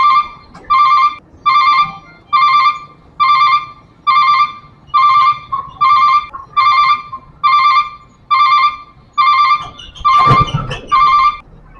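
Railway level-crossing warning bell ringing: one electronic ding of the same pitch repeated about every 0.7 seconds. It stops shortly before the end. About ten seconds in, a brief, louder burst of low rumble and rushing noise sounds over it.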